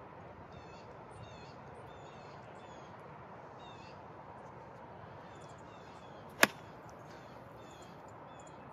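A golf club, a 60-degree wedge, strikes the ball once about six and a half seconds in: a single sharp, crisp click. Birds chirp repeatedly in the background.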